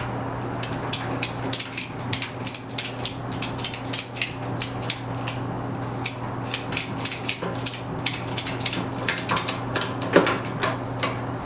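Ratchet strap buckle being cranked by hand, its pawl clicking in a rapid, uneven series of sharp clicks as the strap is tightened. A steady low hum runs underneath.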